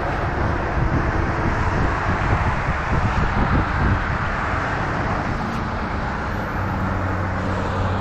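Telehandler's diesel engine running, a steady hum that evens out about six and a half seconds in.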